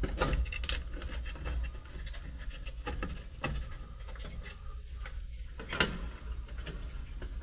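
Hands handling bundled wiring and plastic wire connectors inside an air handler's control compartment: scattered clicks and rustling over a low steady rumble.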